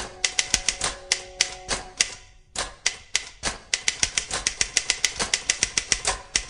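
Electronic typewriter being typed on: a quick, uneven run of key clicks, several a second, with a brief pause about two and a half seconds in.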